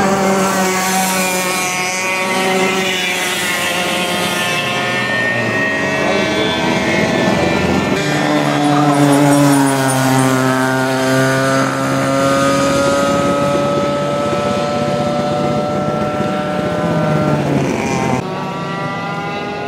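Racing kart two-stroke engines running around a track, their pitch climbing and falling as the karts accelerate and lift off for corners. About eight seconds in, one kart comes close and loud, its engine note sliding slowly down as it goes by; near the end the sound cuts abruptly to a quieter engine note.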